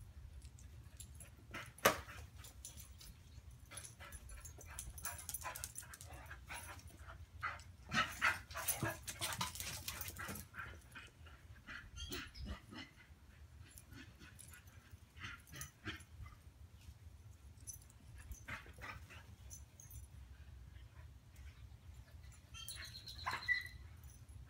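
Brittany puppies at play: scattered short dog sounds and clicks, busiest about eight to ten seconds in, with one sharp click about two seconds in and a brief high-pitched call near the end.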